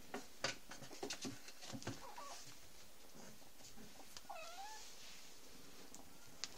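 Kittens playing against a wooden cat box: scattered light knocks and scuffs of paws and claws on the wood, with a faint chirp about two seconds in and a short kitten meow about four seconds in.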